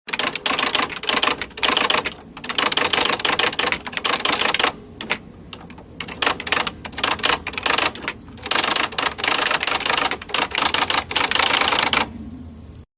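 Rapid typing keystrokes: quick runs of sharp clicks broken by short pauses, stopping about a second before the end.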